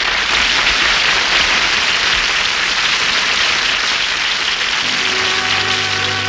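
Studio audience applauding, with an orchestra starting to play about five seconds in as the applause dies down.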